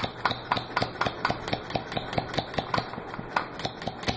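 Small two-stroke weed-eater engine converted to run on compressed air, running with a sharp puff of air at each beat as the reed-switch-triggered solenoid valve admits air. The beats come about four a second and quicken slightly.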